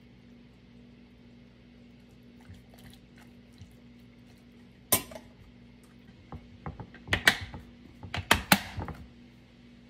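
A metal spoon clinking against a glass food container, then a plastic snap-lock lid pressed onto glass containers, with a run of sharp clicks and knocks in the last few seconds, the loudest near the end as the lids' clips snap shut.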